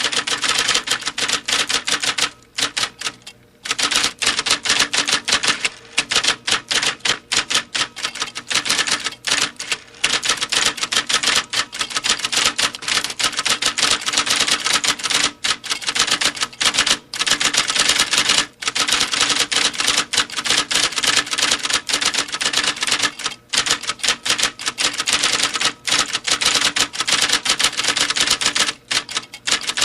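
Typewriter keys struck in fast, continuous typing, many sharp clacks a second, with a short pause about three seconds in and a few brief breaks later.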